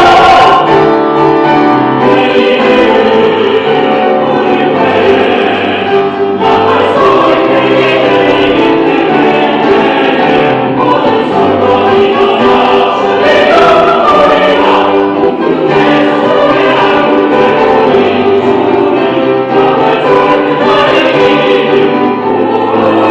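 Choir singing a hymn in harmony, with sustained chords moving from note to note.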